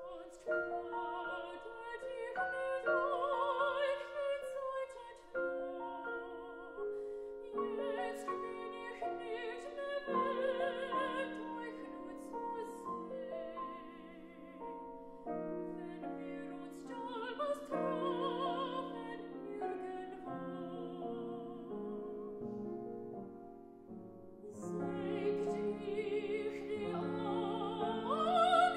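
Female classical singer singing a German art song in phrases with a wide vibrato, accompanied by piano.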